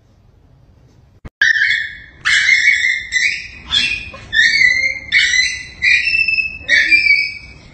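A small dog whining: a quick run of about seven high-pitched, drawn-out squeaky cries, each about half a second long, starting after a click about a second and a half in.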